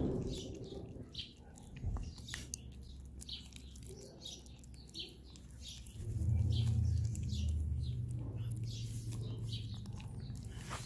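A bird chirping repeatedly, short high chirps about twice a second. A low steady hum comes in about six seconds in.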